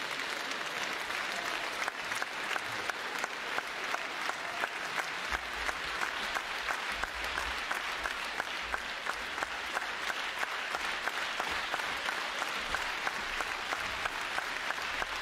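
A large theatre audience applauding, which about two seconds in settles into rhythmic clapping in unison.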